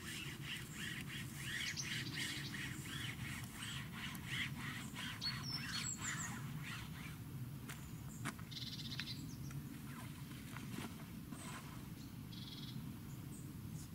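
Songbirds singing and calling: a fast run of repeated chirps through the first half, then fewer, scattered calls, over a steady low outdoor rumble.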